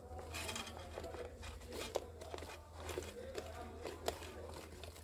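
Thin plastic of a soft-drink bottle bait hive crinkling and clicking in short, irregular crackles as it is handled and cut open with scissors.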